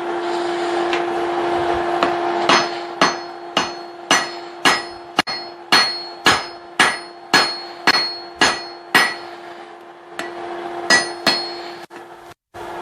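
Hand hammer striking hot steel on an anvil, about two blows a second in a steady run of a dozen or so, each with a short metallic ring, then two more blows after a pause; the blacksmith is drawing out the taper of a hammer eye punch. A steady hum runs underneath.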